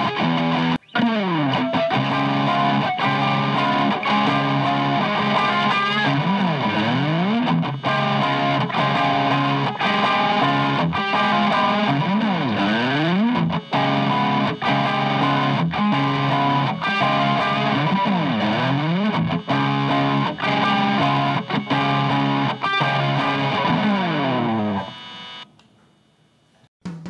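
Distorted electric guitar played through a DOD Juice Box FX51, a Tube Screamer–style overdrive pedal, with chords and notes sliding up and down in pitch again and again. The playing stops near the end.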